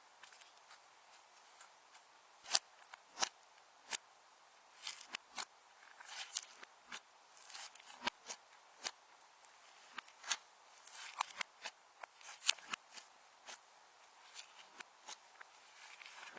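Slime being kneaded and pressed by hand, making irregular sharp clicks and small pops several times a second, with a few louder pops.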